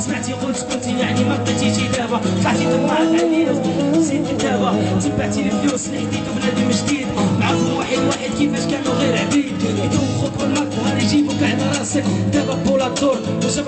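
Live band music with percussion and a male vocalist singing into a microphone.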